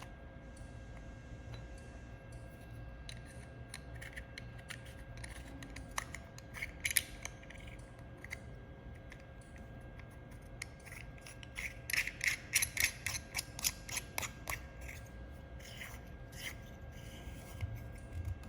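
Small clicks and taps from handling the laser welder's protection lens and its holder parts, with a quick run of clicks about twelve seconds in, over a faint steady hum.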